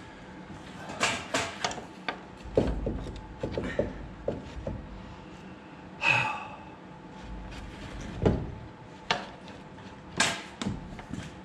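Irregular clunks, knocks and scrapes of metal parts and tools being worked under a car while a steering rack is fitted, with a brief squeaky scrape about six seconds in.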